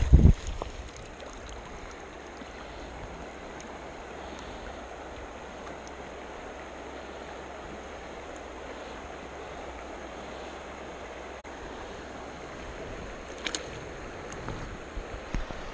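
Steady rush of a shallow, rocky mountain river flowing. A heavy low thump sounds right at the start, and light knocks come near the end.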